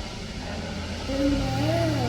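A heavy construction machine's engine running steadily with a low hum. Near the end a brief pitched sound rises and falls over it.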